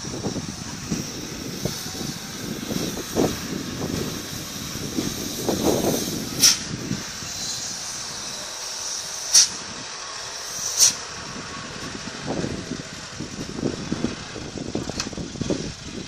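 Sand-hauling dump truck's engine running as it drives along a dirt road, with three short, sharp hisses, the loudest sounds, about six and a half, nine and a half and eleven seconds in.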